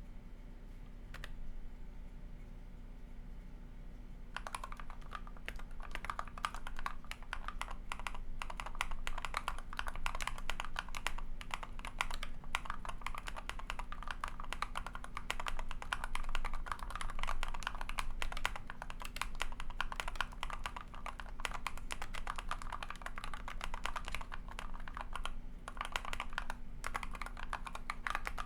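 Keyball61 split mechanical keyboard with Durock POM linear switches and PBT keycaps being typed on: a few scattered keystrokes, then continuous fast typing from about four seconds in.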